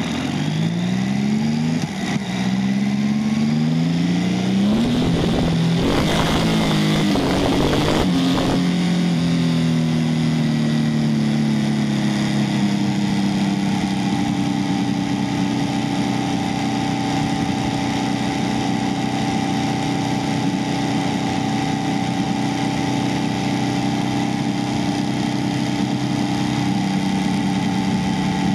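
Motorcycle engine accelerating through the gears, its pitch climbing and dropping back with each of several quick upshifts, then settling into a steady cruise. A few seconds of rushing wind noise swamp it about six seconds in.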